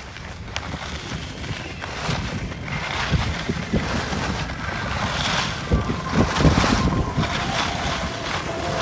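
Wind buffeting the microphone and the scrape and hiss of a snowboard sliding over chopped-up packed snow during a downhill run, getting louder as the run goes on.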